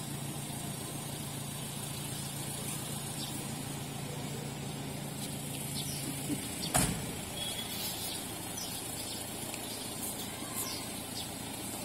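Outdoor background with a steady low hum that stops about six and a half seconds in, followed shortly by a single sharp knock; faint high chirps come and go throughout.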